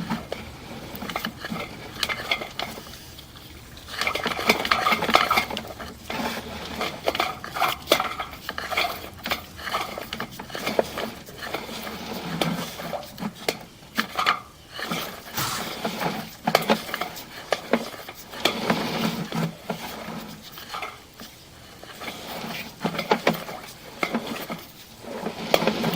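Irregular clattering, clinking and scraping in bursts, as a sewer inspection camera's push cable is fed along a drain line.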